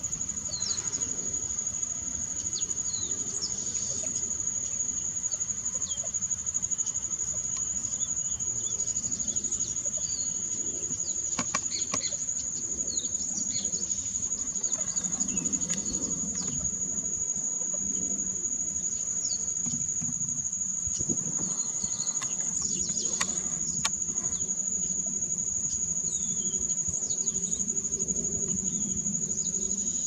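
An insect trills in one continuous, steady, high-pitched tone, cricket-like, with faint short bird chirps scattered through it.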